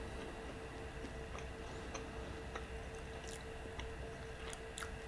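Quiet close-up chewing of a bite of fried chicken tender: scattered small mouth clicks over a steady low electrical hum.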